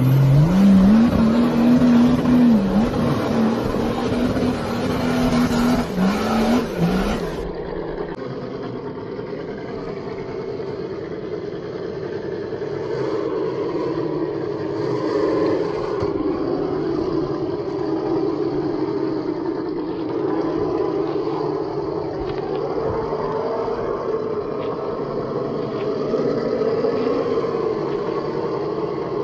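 For about the first seven seconds, a loud intro sound effect like a revving engine, sweeping up in pitch and then holding with small dips. It cuts off abruptly, and the rest is a 1:10-scale RGT EX86190 electric RC crawler driving over gravel: a steady motor and gearbox whine that rises and falls slightly, with light crunches and ticks of stones.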